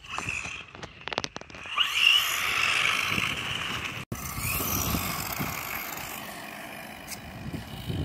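BEZGAR 1:16 RC truck's electric motor whining as it speeds up, with its tyres hissing on asphalt. It rises in pitch about two seconds in and again just after the midpoint, then fades as the truck drives away.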